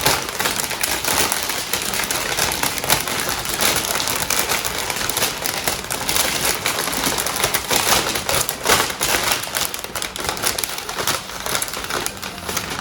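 Continuous crackly rustling and crinkling of packing material being handled, with many small clicks, as mail-order plants are unwrapped from their box.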